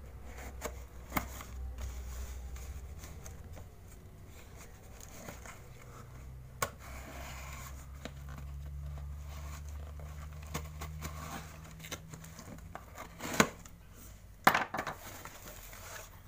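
Folding knife cutting through packing tape on a cardboard box, with scratching, tearing and cardboard flaps being handled. A couple of sharp knocks near the end are the loudest sounds.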